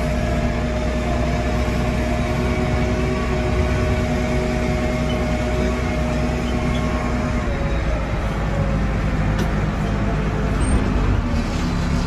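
Case 580 Super M backhoe's diesel engine running steadily as the machine drives, heard from inside the cab; the engine note drops slightly about seven and a half seconds in.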